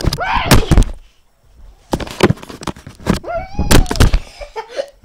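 Cat meowing twice, an arching call near the start and a longer drawn-out one about three seconds in, over loud rubbing and knocking of the camera against the cat's fur.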